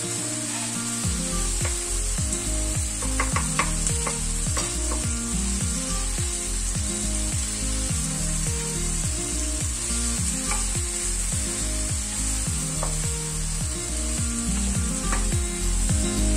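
Cherry tomatoes, garlic and anchovies sizzling in a frying pan, with a wooden spoon clicking and scraping against the pan as they are stirred. Background music with a steady beat plays underneath.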